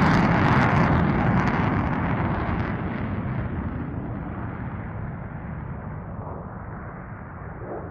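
F-35A Lightning II's single F135 afterburning turbofan, its jet noise fading steadily as the fighter climbs away after takeoff. The hissing top of the sound dies away first, leaving a duller, lower noise.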